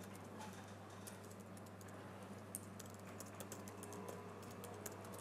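Faint typing on a computer keyboard: a quick, uneven run of key clicks as a short command is typed, over a steady low hum.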